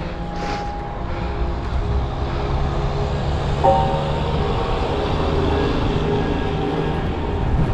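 Steady rumble of wind and riding noise on a bicycle helmet camera, under quiet background music with a few held notes.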